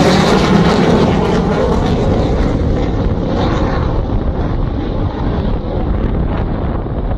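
F-7 fighter jet flying low past and away, its jet engine noise fading slowly as the high hiss dulls with distance.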